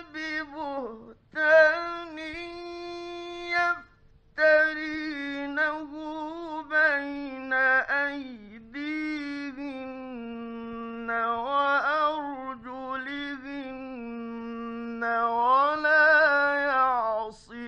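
A male Quran reciter's solo voice chanting in a slow, melodic style: long held notes with ornamented turns, broken by short pauses for breath. It swells into its loudest, rising phrase near the end. This is a late-1950s radio studio recording.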